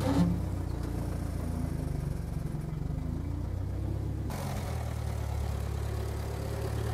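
Towmotor forklift engine running steadily while it lifts and carries a load, with a brief clunk just after the start. The engine note shifts about four seconds in.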